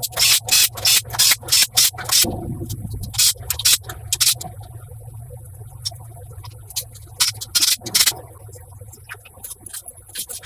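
Rapid abrasive rubbing strokes, like sanding, in quick runs of several strokes a second with pauses between, over a low steady hum.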